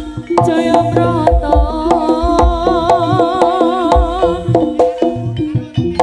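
Javanese jaranan ensemble music: rapid drum strokes and struck percussion under steady held pitched tones, with a wavering melody line carried on a strong vibrato.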